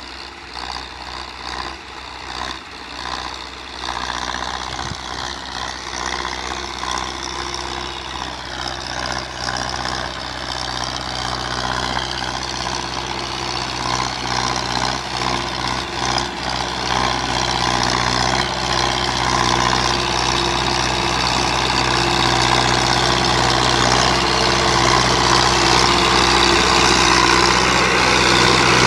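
Belarus 510.1 tractor's diesel engine running steadily under load while pulling a five-tine chisel plough, growing steadily louder.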